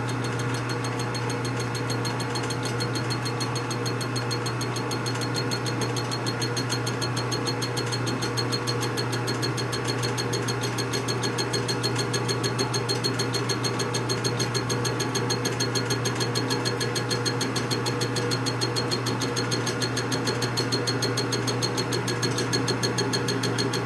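Metalworking machine tool running steadily while machining an aluminum brake caliper bracket: a constant hum with a fast, regular pulsing that grows slightly louder in the second half.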